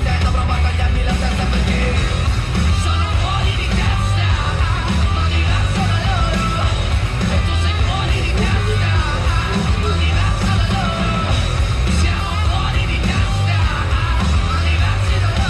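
Loud rock music: electric guitars over a heavy, pulsing bass beat, with shouted, sung vocals.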